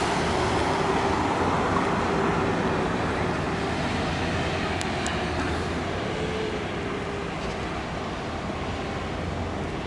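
Steady mechanical drone of a floating grab crane working a barge, mixed with road traffic noise, easing slightly; a couple of faint clicks about five seconds in.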